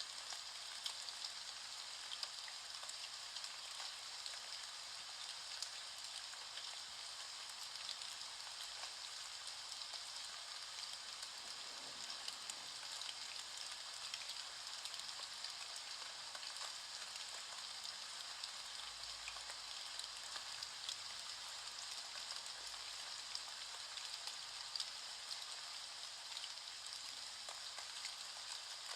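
Steady rain falling, an even patter of drops.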